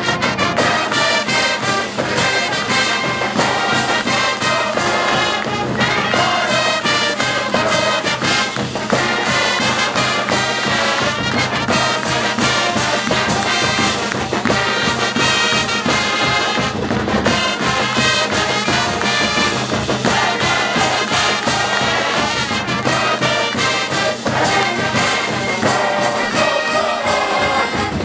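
University marching band playing brass-led music: trumpets, trombones and sousaphones over flutes, cymbals and drums, with a steady drum beat.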